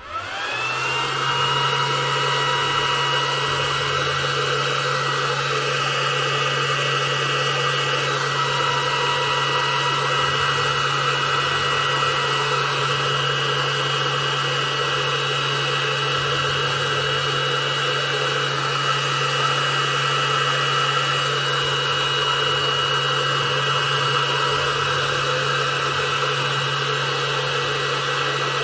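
Small electric motor switching on with a short rising whine as it spins up, then running steadily with a low hum and a high whine.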